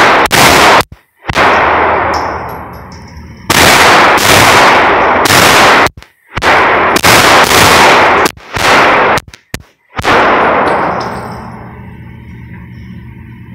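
A string of pistol shots, about a dozen sharp cracks over ten seconds, each trailing off in ringing echo and loud enough to max out the recording. The shots stop about ten seconds in, leaving a low background hum.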